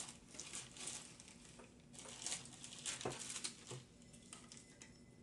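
Faint rustling and crinkling of an item and its wrapping being handled, in short clusters about a second in and again around two to three and a half seconds in.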